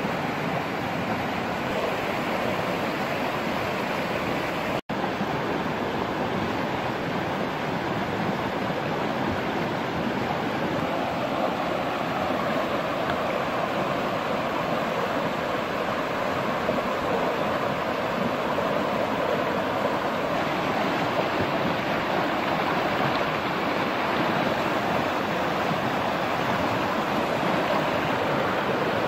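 Fast-flowing river rushing steadily over rocks close by, a continuous noise of moving water. It cuts out for an instant about five seconds in.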